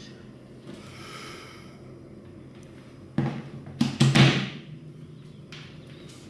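A plastic wall charger being pushed into a power-strip socket: a few sharp knocks and clunks just after three seconds and around four seconds in, the last the loudest.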